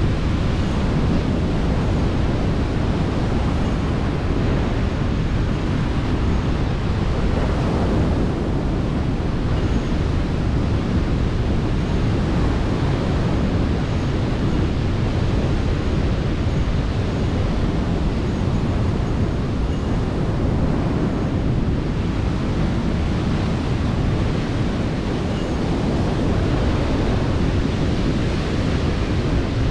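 Rough sea surf breaking continuously on a sandy shore, with wind buffeting the microphone in a steady low rumble.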